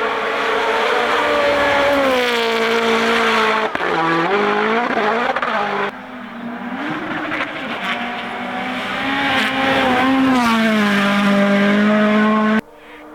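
Rally car engine at full throttle, its note climbing and dropping through gear changes and lifts. The sound breaks off abruptly about six seconds in and again near the end.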